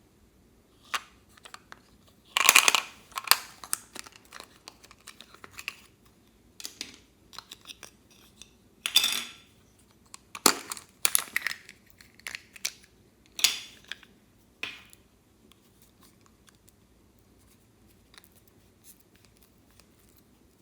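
Clear slime being worked by hand, giving irregular sticky pops, clicks and crackles. There are several louder bursts through the first two thirds, then only faint ticks.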